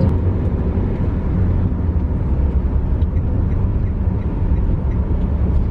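Steady low rumble of a running vehicle, with an even noise haze above it.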